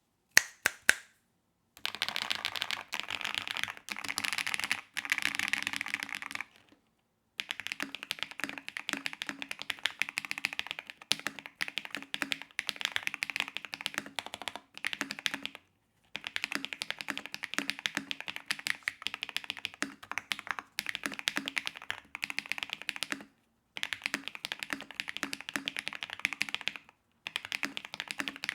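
Fast typing on a mechanical keyboard fitted with Keygeek Mirror Lake V2 factory-lubed linear switches. A few sharp single keystrokes come first, then rapid runs of keystrokes broken by several short pauses.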